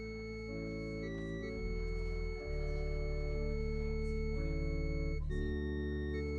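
Organ playing slow sustained chords that change every second or so over a held bass note, the postlude closing the church service.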